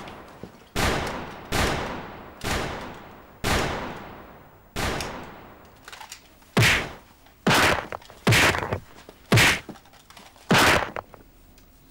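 A volley of about ten gunshot sound effects, spaced roughly a second apart. The first few ring out with long decaying tails, and the later ones are shorter and sharper.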